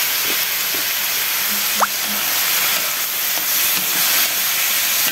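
Vegetables sizzling and steaming in a hot pan over a high flame with a little water, a steady hiss. A brief click about two seconds in.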